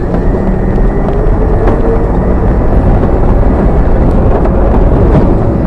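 A vehicle driving over broken, potholed asphalt: a loud, steady road and running rumble with a few faint knocks from the rough surface.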